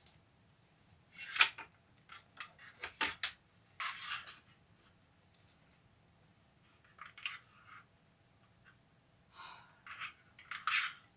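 Curtain panels being worked onto a metal curtain rod: bursts of fabric rustling with scattered clicks and metal scrapes, at irregular moments.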